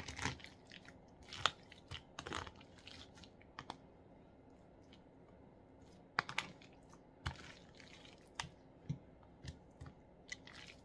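Hands mixing spice-coated raw chicken pieces in a plastic tray: faint, irregular soft smacks and clicks as the pieces are turned over.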